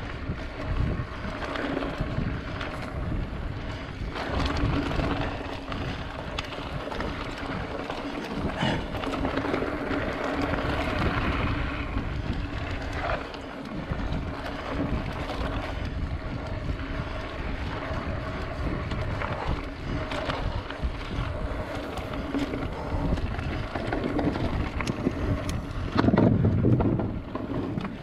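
Wind buffeting a bike-mounted camera's microphone over the rumble of mountain bike tyres rolling along a dirt trail, louder for a moment near the end.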